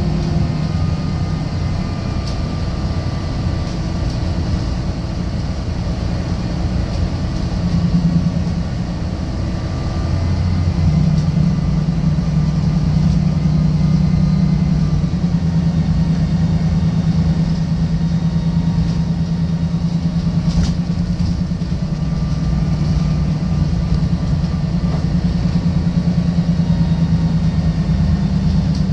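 Interior sound of a Volvo B12BLEA articulated diesel bus under way: a steady low engine drone that steps up a little about a third of the way in, a fainter whine that slides in pitch, and road noise.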